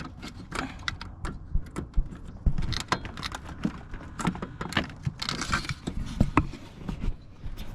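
Screwdriver working at the retaining clip of a Toyota Tundra's main fusible link block: scattered clicks, taps and scrapes as the clip is pushed back and the block is worked loose.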